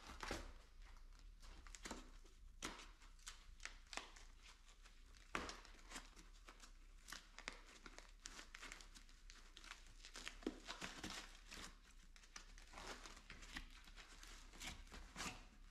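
Faint crinkling and tearing of the packing padding as it is pulled off the ends of an e-bike's handlebars, heard as scattered small crackles.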